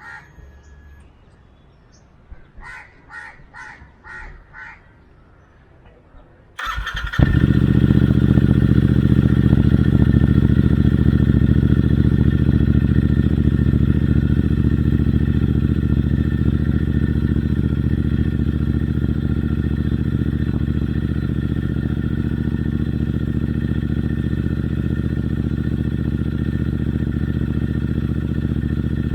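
Royal Enfield Interceptor 650's 648 cc parallel-twin with Red Rooster Performance aftermarket exhausts, cold-started: the starter cranks briefly about six seconds in, the engine catches, and it settles into a steady idle, a little louder for the first few seconds.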